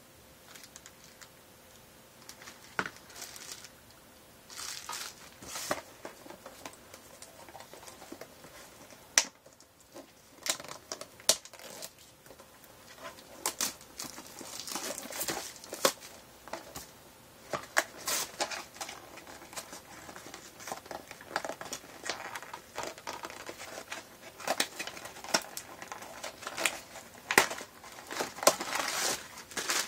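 Crinkling and tearing of a Funko Mystery Mini blind box's foil bag as it is handled and opened, with clicks from the cardboard box and small vinyl figures being handled. The handling noises are sparse at first and come thick and fast in the second half.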